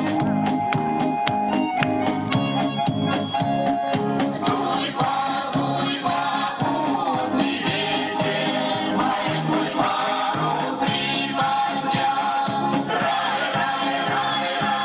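Music with a group of voices singing over a steady beat; the voices fill in more fully about four seconds in.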